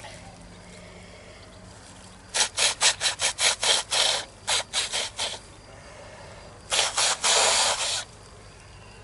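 A girl blowing her nose hard in two goes. First comes a spluttering run of a dozen or so short, fast blasts over about three seconds. After a short pause a second blow starts with a couple of blasts and ends in one held blast of about a second.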